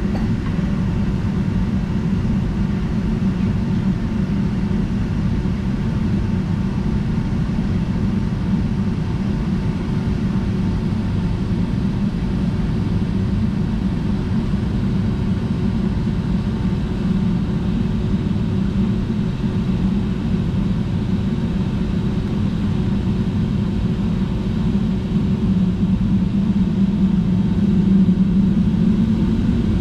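Jet airliner cabin noise while taxiing: a steady low rumble from the engines and the rolling aircraft, with a faint steady hum, growing a little louder near the end.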